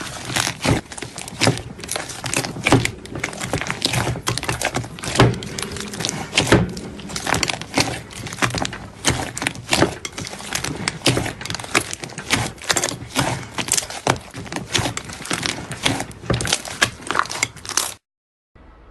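Slime being squeezed and pressed by hand, giving a dense run of crackling pops and clicks, several a second. It cuts off suddenly near the end.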